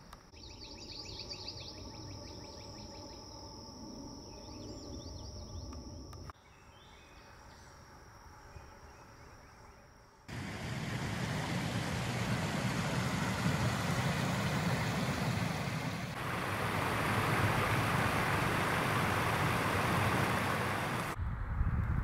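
Quiet outdoor background with a brief high trill of chirps, then from about ten seconds in a steady loud rush of shallow river water pouring over a sloping concrete low-water crossing, cutting off near the end.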